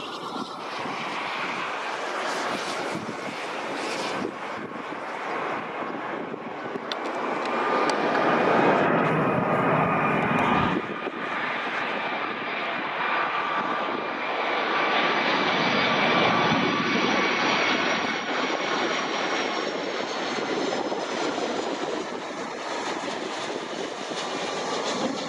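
Boeing 757-2K2's twin Rolls-Royce RB211 turbofan engines on final approach, a steady roar with a high fan whine. The level drops suddenly about ten seconds in and the roar and whine carry on.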